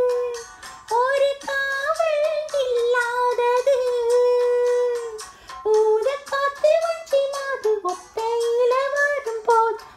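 A single high voice singing a melody unaccompanied, practising a Tamil song, with long held notes and short breaks between phrases.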